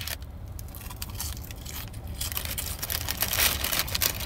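Chewing crinkle-cut french fries close to the microphone: a run of short, soft crunchy mouth noises, busiest near the end, over a steady low hum.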